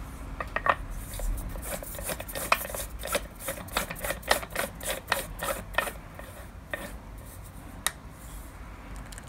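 Plastic air-filter housing being screwed by hand onto the threaded intake of an air compressor's pump: a run of short rasping scrapes and clicks as it turns on the thread, thinning to a few odd ticks after about six seconds.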